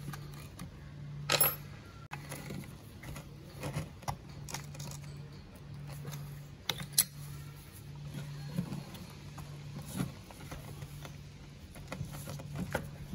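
Metal hex key clinking and scraping against a rusty chainsaw's carburetor and throttle linkage: scattered small metallic ticks, with two sharper clicks about a second and a half in and about seven seconds in. A low hum comes and goes underneath.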